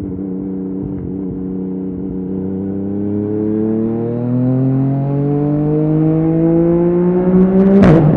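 Yamaha MT-09 three-cylinder engine through an Akrapovic exhaust, running steadily and then revving higher under acceleration. Near the end a sharp crack comes from the exhaust and the revs drop at once: a quickshifter upshift.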